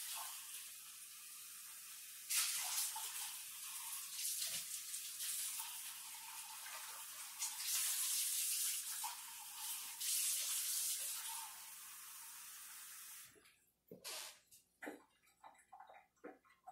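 Kitchen tap running into a cup for about thirteen seconds, the flow getting louder and softer a few times, then shut off. A few light knocks follow near the end.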